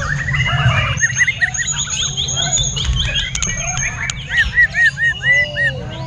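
White-rumped shama singing a fast, varied stream of whistled phrases, with quick repeated notes in the first half and a run of about five loud, arching notes near the end. Other birdsong overlaps it over a low rumble.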